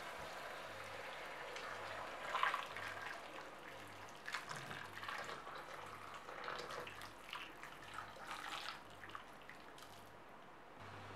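Hot water poured in a steady stream into a pot of browned chicken, splashing unevenly as the pot fills; the sound thins out near the end.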